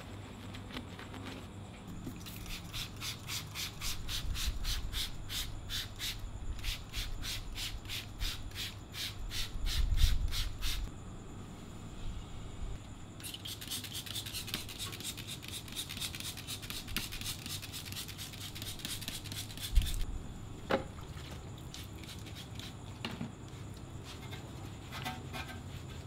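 Soft detailing brush scrubbing soap foam on a car's emblem in quick, even strokes, about four a second. Then a trigger sprayer hisses steadily onto an alloy wheel, and a brush scrubs the wheel near the end, with a few dull thumps and one sharp knock.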